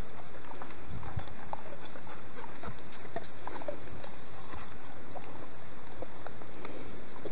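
Footsteps and dogs' paws on a dry, leaf-littered woodland path, a scatter of small irregular crunches and taps.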